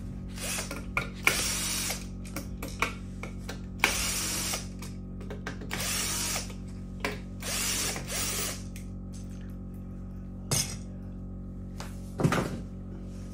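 Cordless drill-driver running in about five short bursts on the screws of an electric scooter's rear wheel, with a couple of sharp knocks near the end.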